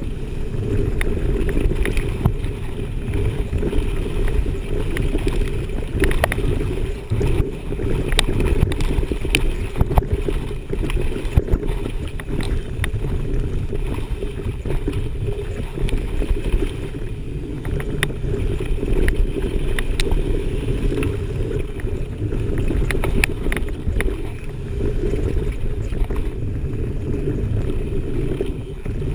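Mountain bike descending a rough forest trail at speed, heard through a handlebar-mounted action camera: a steady dull rumble of tyres and wind on the microphone, with frequent sharp knocks and rattles as the bike hits roots and bumps.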